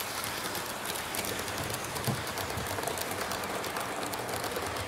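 Model railway coaches rolling past on the layout track: a steady rolling rush thick with fast, fine clicking from the small metal wheels running over the rails.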